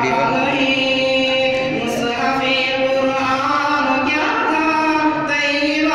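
A man's voice in melodic chanted recitation into a microphone, holding long notes that glide from one pitch to the next.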